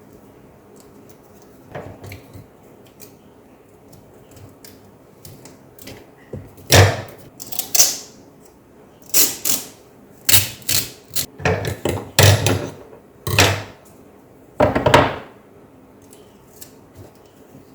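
White adhesive tape being pulled off its roll and pressed down around the edges of a laptop keyboard. It makes about eight short ripping sounds between about six and fifteen seconds in, with light handling clicks before them.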